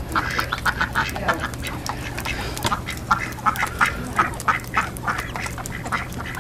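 Domestic ducks quacking in quick runs of short, repeated calls.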